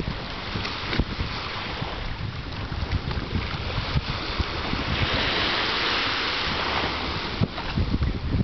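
Wind buffeting the microphone, with shallow sea water splashing and lapping around a person scrambling up from hands and knees. A louder hissing stretch runs from about five to seven and a half seconds in.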